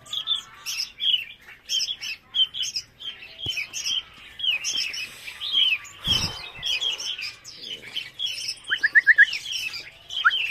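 Young red-whiskered bulbuls chirping in their cages, many short calls overlapping one another. Near the end comes a quick run of four rising notes, and a dull thump sounds a little past the middle.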